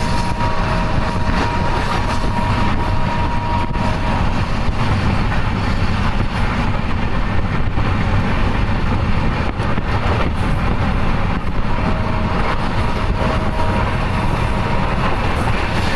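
Indian Railways express passenger coach running at speed, heard from inside by an open window: a steady rumble of wheels on rails with wind noise. A steady two-note horn sounds for about four seconds at the start and again near the end.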